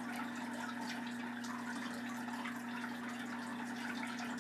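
Soft scratching of an oil pastel stroked across paper, in short irregular strokes, over a steady low hum and hiss.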